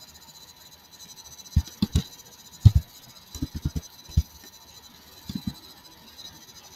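About a dozen short, dull taps of a computer keyboard and mouse clicks in uneven little groups, the loudest a pair just under a second apart near the middle, over faint steady hiss.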